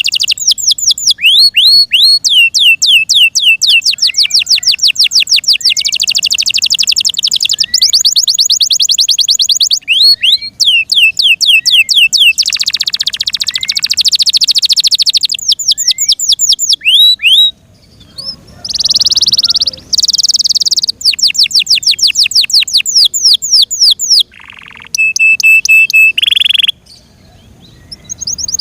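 F1 Yorkshire canary singing a long, loud song of fast trills made of quickly repeated sweeping notes at changing speeds. Buzzy rolls come twice, it breaks off briefly about two-thirds through, and near the end it holds a short steady whistle.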